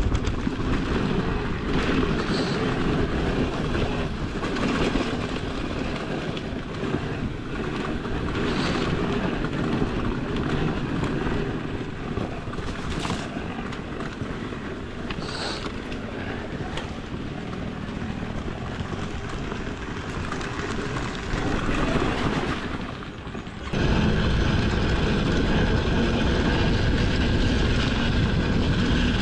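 Dirt bike engine running steadily, with a few sharp knocks along the way; about 24 seconds in it suddenly gets louder.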